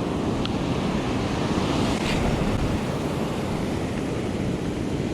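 Ocean surf breaking on a beach: a steady, continuous wash of waves, with wind buffeting the microphone.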